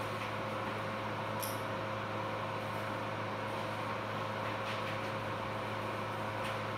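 Steady low electrical hum with a faint higher tone and hiss from operating-room equipment, with a few faint soft clicks.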